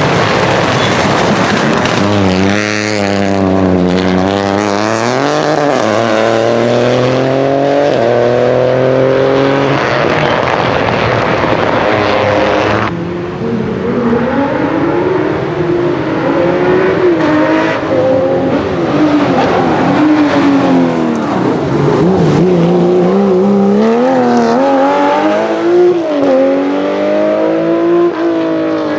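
Rally car engines revving hard on a circuit stage. The pitch climbs and drops repeatedly with throttle and gear changes. The sound changes abruptly about 13 seconds in.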